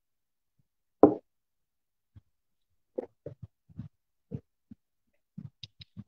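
A man's voice coming through an unstable video-call connection, breaking up into short clipped fragments with dead silence between them. One louder single fragment about a second in, then a run of choppy bits from about three seconds on.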